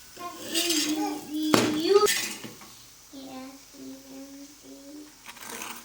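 Kitchen utensils clinking and knocking against dishes, with one sharp knock about a second and a half in, while a voice hums a string of short held notes.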